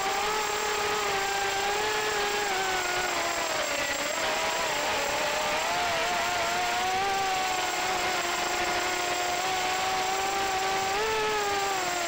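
FPV racing quadcopter's electric motors and propellers whining, heard from the drone's onboard camera over a rush of airflow. The pitch dips about three to four seconds in and rises again near the end as the throttle changes.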